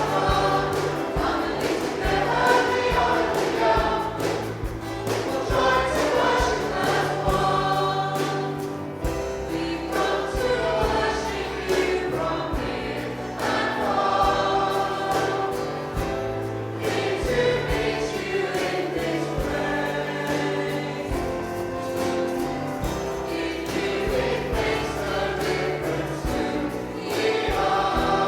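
A worship song: group singing over instrumental backing.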